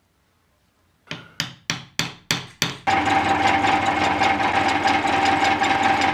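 Six quick hammer taps, then a bench drill press starts and runs steadily with a constant tone, drilling holes in a wooden knife handle held in a machine vise.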